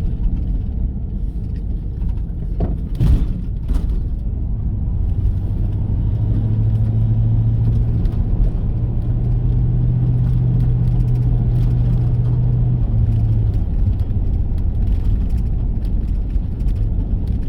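Car driving, heard from inside the cabin: a steady low rumble of engine and road noise, with a sharp knock about three seconds in and a steady low engine drone through the middle.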